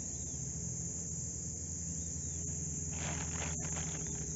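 A steady, high-pitched chorus of insects such as crickets, over a low steady hum, with a brief rustle about three seconds in.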